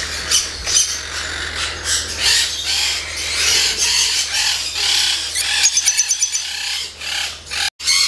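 Caged lovebirds chattering and screeching, many shrill calls overlapping, with a quick run of rapid repeated chirps about six seconds in. A steady low hum runs underneath.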